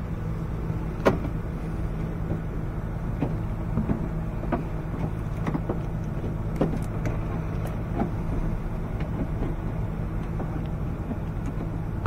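Scattered light clicks and taps of gloved hands working a stubborn plastic rod clip off the outer door handle's linkage rod inside a pickup's door, over a steady low hum.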